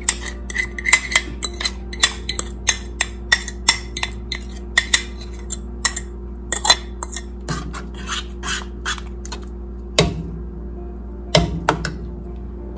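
A metal fork scraping and clinking against a ceramic bowl as thick cornstarch slurry is scraped out into a pot, in quick irregular ticks, thinning out later, with a couple of louder knocks near the end as the fork goes into the pot. A steady low hum runs underneath.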